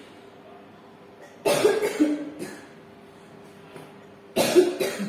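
A person coughing twice: once about a second and a half in, and again near the end.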